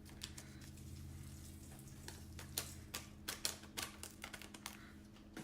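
Irregular light clicks and taps of hands handling the plastic packets of a salad kit, over a low steady hum during the first half.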